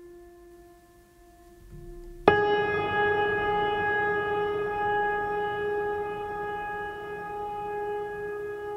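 Background music of long held notes: a soft sustained tone, then a little over two seconds in a much louder held note with a rich, reedy overtone series comes in abruptly and sustains, slowly fading.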